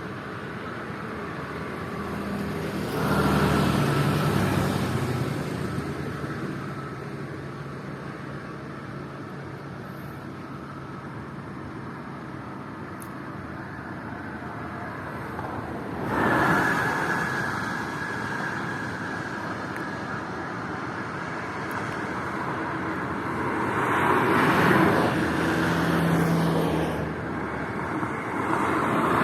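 Motorway traffic: vehicles passing at speed one after another, their tyre and engine noise swelling and fading over a steady background rush. The loudest passes come about three seconds in, about sixteen seconds in and around twenty-five seconds in.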